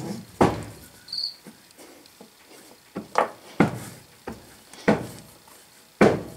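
Steel parts of a three-jaw scroll chuck knocking and clunking against each other and the bench as the back plate is fitted onto the chuck body: a series of sharp metallic knocks, the loudest about half a second in and near the end.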